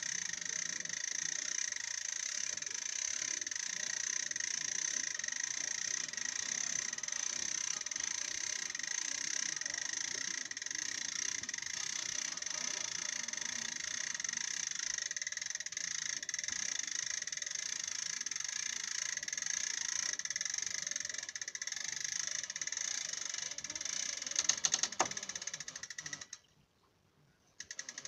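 Hand winch on a boat trailer being cranked steadily, a continuous mechanical rattle as the boat is hauled up; it drops out suddenly for about two seconds near the end.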